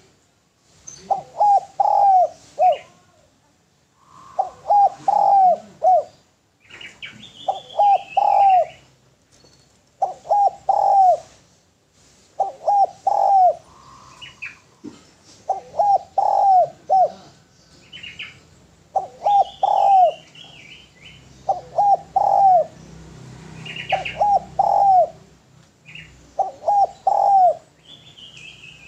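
Spotted dove cooing: short phrases of three or four coos, repeated every two to three seconds. Small birds chirp between the phrases.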